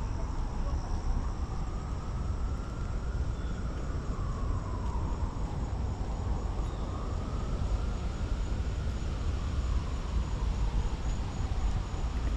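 Steady chirring of crickets over a low rumble, with a faint tone that slowly rises and falls twice.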